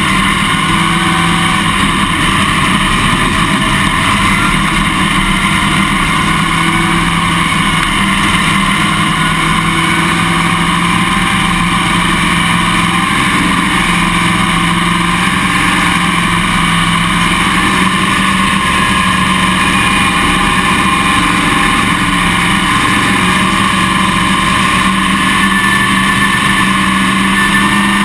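Dirt late model race car's V8 engine heard from a camera mounted on the car, running steadily at moderate speed with the field of other late models, its pitch edging up slightly about two-thirds of the way through.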